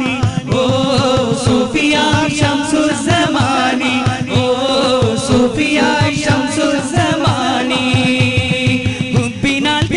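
Qawwali music: voices singing long, wavering, ornamented lines over a sustained drone, with a steady hand-drum beat underneath.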